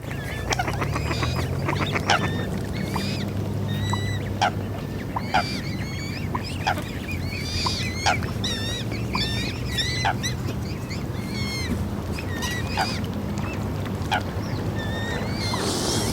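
Swans calling: many short, squeaky calls with quick up-and-down pitch slides, over a steady low hum.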